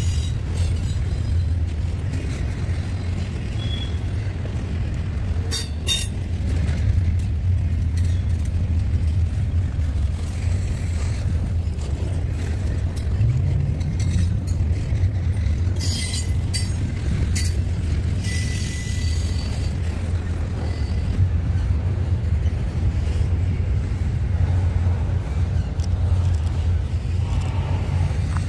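Freight train rolling by: a steady low rumble of the cars on the rails, with occasional metallic clanks and a few short high-pitched wheel squeaks.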